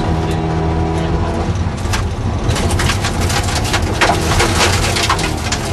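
Ford Anglia rally car's engine running hard, heard from inside the cabin, with its note steady at first, falling back through the middle and picking up again near the end. From about two and a half seconds in, a dense clatter of clicks and knocks as the car runs over rough gravel.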